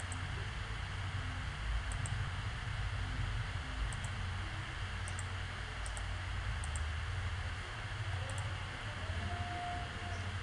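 Computer mouse clicking every second or two, each click a quick double tick, over a steady hiss and low hum from the recording.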